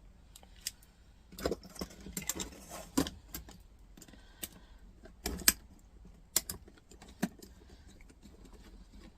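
Irregular small metallic clicks and scrapes of a hand screwdriver working at a stubborn screw in a docking station's metal casing. They come in scattered clusters, the loudest about a second and a half in and again past the five-second mark.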